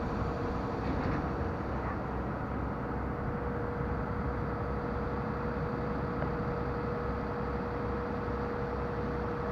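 An engine running steadily: a low rumble under a constant mid-pitched hum.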